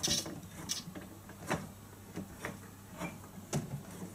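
A woodworking clamp being tightened by hand against a workbench: a string of separate clicks and small knocks, roughly one every half second.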